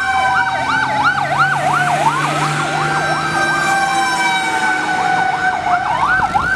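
Fire truck sirens sounding together as a convoy passes: a slow rising-and-falling wail, a fast yelp warbling about three times a second, and a steady high tone, over a low diesel engine rumble.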